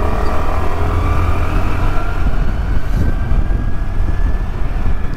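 Scooter riding along: the engine runs under a heavy, steady rumble of wind on the microphone. A faint whine rises slowly in pitch as the scooter gathers speed.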